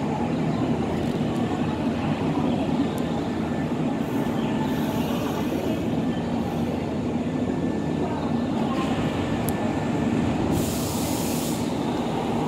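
Nankai Main Line electric commuter train running, a steady low rumble of wheels on track, with a brief burst of hiss about ten and a half seconds in.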